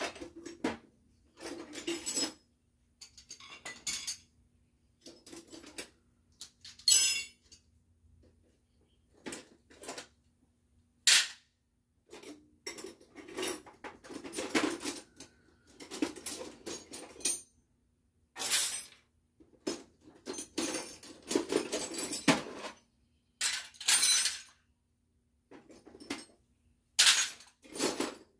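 Irregular metallic clanks, clinks and rattles of tools and metal parts being handled and set down, in short bursts with gaps between, over a faint steady hum.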